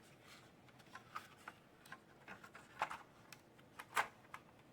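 Faint, irregular light clicks and taps of plastic instrument-cluster parts being handled during reassembly, with two louder clicks about three and four seconds in.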